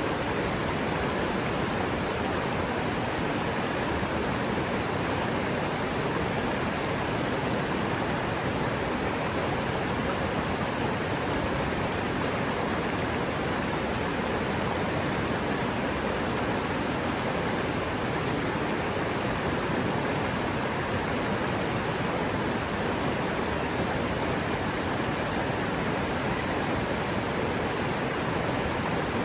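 Forest river water running, a steady, unbroken rush with no change throughout.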